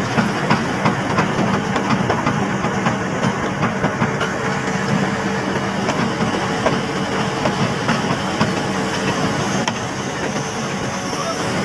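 Diesel engine of heavy construction machinery running steadily, with a hiss and scattered small clicks and knocks.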